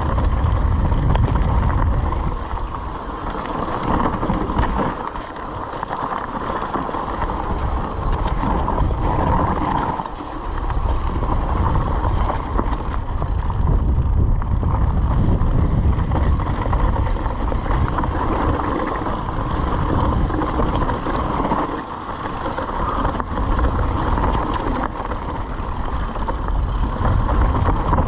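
Mountain bike descending a rocky dirt trail: tyres rolling and crunching over loose stones, with constant small rattles from the chain and frame. Wind rumbles on the microphone underneath.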